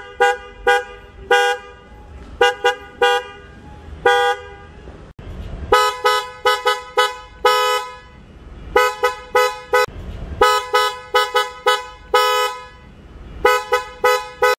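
A pair of snail-type (spiral) electric car horns sounding a two-note chord, honked in many short toots and quick patterns, with a few longer blasts.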